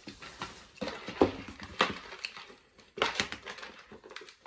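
Rustling and crinkling of paper and plastic packaging as items are handled, with a few small clicks and knocks among irregular bursts.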